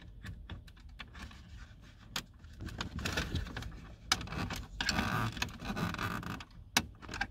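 Small plastic clicks and scraping as a flat screwdriver tip works the locking tabs of wiring plugs behind a car's dashboard trim panel. Scattered clicks sound throughout, with longer bouts of scraping about three seconds in and again around five to six seconds.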